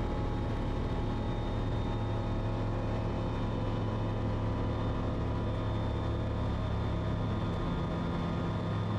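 Kitfox light aircraft's piston engine and propeller running steadily at takeoff power, a constant pitched drone.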